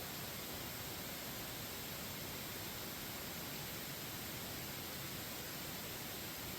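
Steady faint hiss with no distinct sounds in it: the recording's background noise.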